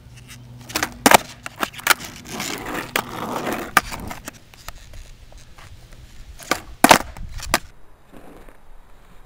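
Skateboard deck and wheels clacking hard on asphalt during a kickflip attempt: several sharp clacks about a second in, then the wheels rolling over rough asphalt, then another quick cluster of clacks around seven seconds in.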